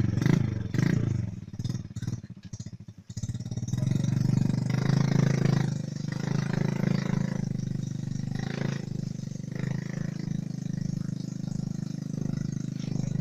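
Motorcycle engine running while the bike carries a heavy load of logs. The revs rise and fall with some clatter for the first few seconds. After a sudden brief drop about three seconds in, it runs at low, steady revs.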